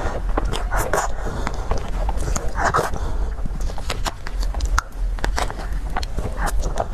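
Close-miked eating sounds: many quick wet mouth clicks and chewing noises over a steady low hum.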